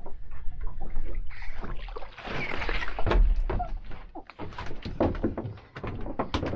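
A big ling being lifted out of the sea and swung aboard a small boat: water splashing and rushing off it about two seconds in, a heavy thump just after three seconds as it lands, then a run of sharp knocks and rattles as the fish flaps and is handled in the boat.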